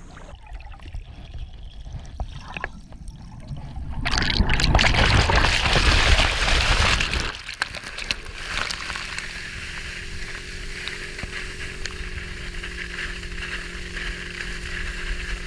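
Lake water sloshing and splashing around a boat, surging loudly for a few seconds midway, then settling to a steady wash with a low hum underneath.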